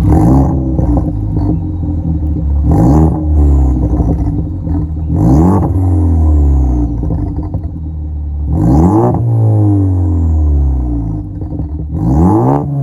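Ford Focus ST's turbocharged EcoBoost four-cylinder, with a Cobb exhaust and catless downpipe, revving up sharply about five times and winding back down slowly each time. A short rush of noise comes at the top of each rev as the throttle closes, the turbo flutter.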